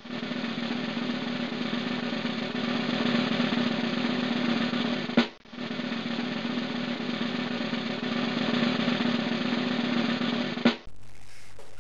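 Recorded snare drum roll that ends in a sharp hit about five seconds in, then a second roll ending in another hit near the end, followed by a short steady low hum.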